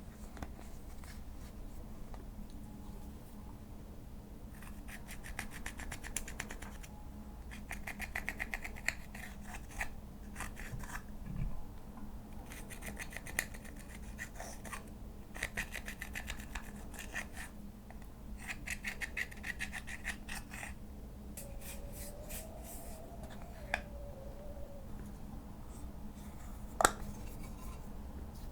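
Slime being kneaded and stretched by hand, giving several runs of quick small clicking pops, each a second or two long, and one sharper click near the end.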